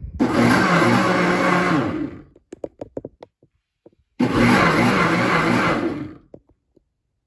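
Ninja Foodi Hot & Cold Blender motor blending a liquid milk-and-cream ice cream base on its Ice Cream program, which runs in spurts. It runs for about two seconds, cuts out with a few brief stuttering pulses, and starts a second run of about two seconds about four seconds in.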